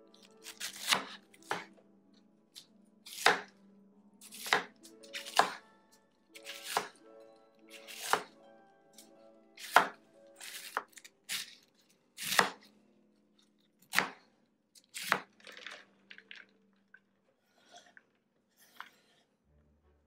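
Kitchen knife chopping cabbage on a cutting board: single sharp chops roughly once a second, unevenly spaced, becoming fewer and fainter near the end. Quiet background music plays underneath.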